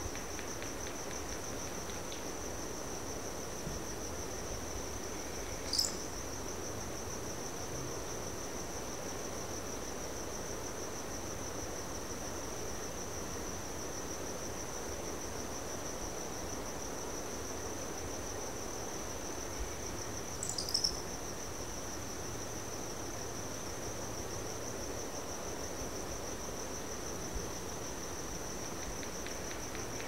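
Crickets trilling in a steady, continuous high chorus over a soft breeze. Two brief high chirps cut across it, about six seconds in and again about twenty-one seconds in.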